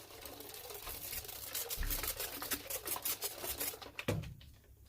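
A new leather sole being wetted by hand before punching, to soften the leather: a quick, scratchy patter of light rubbing and tapping that stops about four seconds in, followed by a few sharp clicks.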